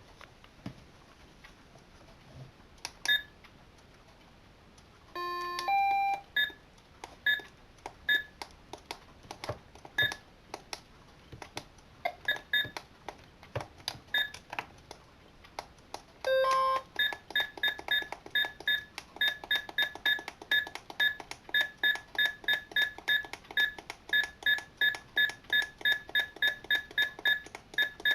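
Electronic alarm clocks sounding: a short two-note chime about five seconds in, then short identical high pips that come unevenly at first and then settle, from about halfway, into steady rapid beeping at about three a second.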